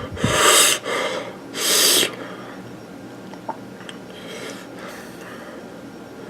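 A man breathing hard and noisily: three loud sharp breaths in the first two seconds, then fainter ones, as he endures the burn of ghost-pepper-spiced beef.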